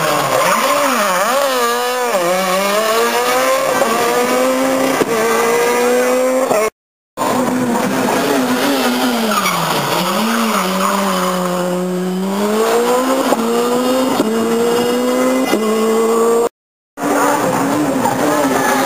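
Rally car engines at full effort through a hairpin, falling in pitch on the way in and then revving up again in steps as the gears change. The sound cuts to silence twice, briefly.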